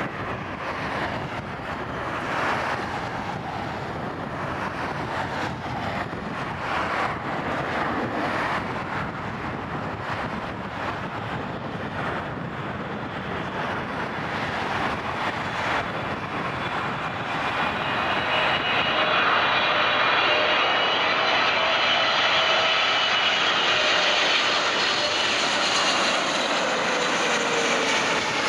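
Jet airliner on landing approach, growing louder as it comes near, with several high engine whine tones emerging in the second half and sliding down in pitch near the end as it passes. Gusts of wind buffet the microphone in the first half.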